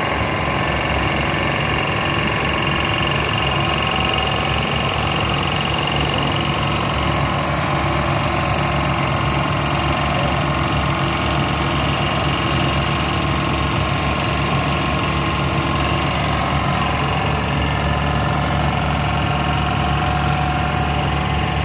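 A traditional wooden boat's inboard engine running steadily, with an even low hum and vibration, heard from on board while the boat is under way.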